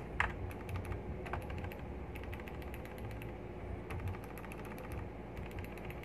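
Bosston mechanical keyboard switches pressed over and over, a quick run of light key clicks. The switches click again now that the grease that had muted them has been flushed out with contact cleaner.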